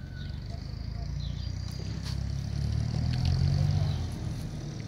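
Low rumble of a motor vehicle that grows louder about halfway through, dips briefly near the end, then builds again.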